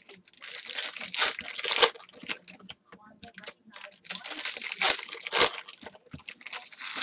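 Foil trading-card pack wrapper crinkling and tearing as it is ripped open by hand, in two bursts: one from about half a second to two seconds in, and one from about three and a half to six seconds in.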